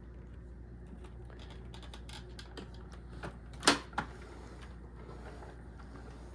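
Scattered light clicks and knocks of handling, with a sharp click a little past halfway and a smaller one right after it.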